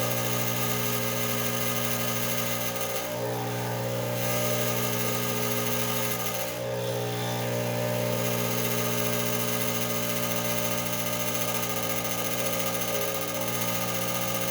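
Expobar espresso machine's pump running with a steady, even hum.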